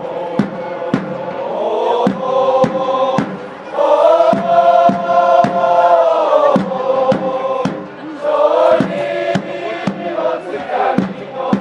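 Football supporters' chant: a large crowd of fans singing together in unison over a steady beat of about two strikes a second, holding one long note in the middle.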